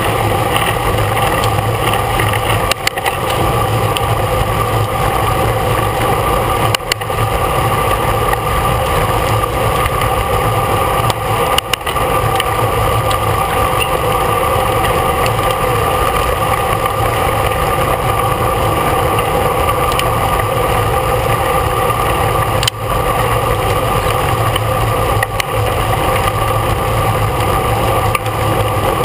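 Steady rush of wind and road noise on a rider's camera microphone while riding in a road bike race, loud and unbroken apart from a few brief dips.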